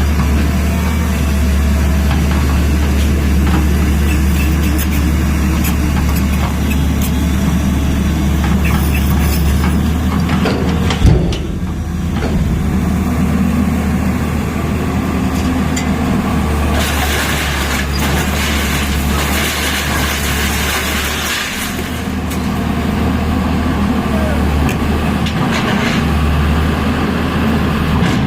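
Tata Hitachi excavator's diesel engine running steadily with a deep rumble, a sharp knock about eleven seconds in and a few seconds of hiss a little later.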